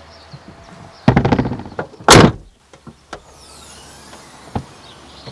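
A car's hatchback tailgate is pulled down and slammed shut. A rattling clatter about a second in leads to one loud slam just after two seconds, followed by a couple of light knocks.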